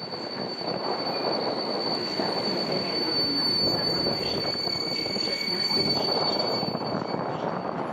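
A train rolling along the rails, its wheels giving a steady high-pitched squeal over a low rumble.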